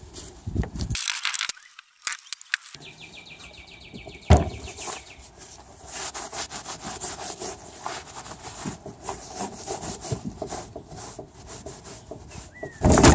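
Irregular rubbing and scraping strokes, with a loud burst of noise near the end.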